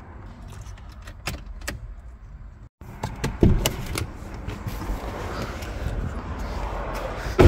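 Handling noises as a person climbs out of a car: a few sharp clicks, then a thud and rustling as they move out past the open door, with a steady low rumble underneath.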